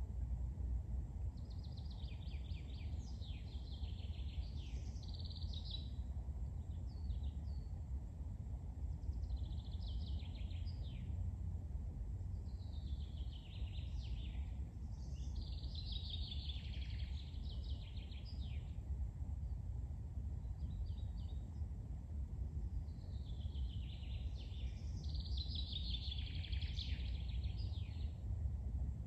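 A songbird singing a series of high, warbling phrases, each one to three seconds long with short pauses between them, over a steady low rumble.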